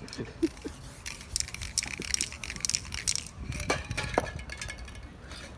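Spray painting at work: short hisses of an aerosol spray can with clicks and scrapes in between.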